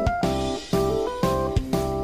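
Background music: an upbeat instrumental with guitar-like plucked notes over a steady drum beat.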